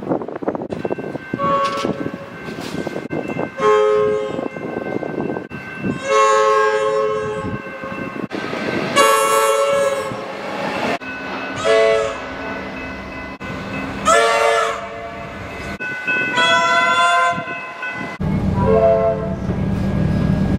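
Comeng electric train horns giving a string of separate blasts, some short toots and some held for a second or more. Each blast is two close tones sounding together, and the changes between recordings are abrupt. Near the end a train's low running rumble comes in under the last blast.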